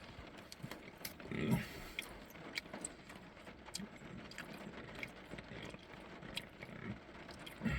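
A man chewing a meat stick: faint scattered mouth clicks, with a short closed-mouth hum about a second and a half in and a couple of smaller ones later.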